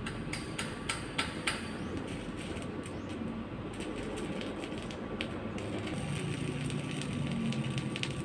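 Arc welding at work: a steady crackle with many sharp ticks, and a few louder clicks early on.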